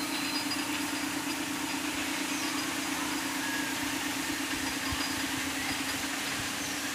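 An engine running steadily, with a constant low hum over a noisy hiss.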